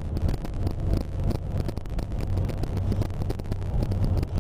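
Car driving along a road, heard from inside the cabin: a steady low rumble of engine and tyres, with crackling wind noise on the microphone.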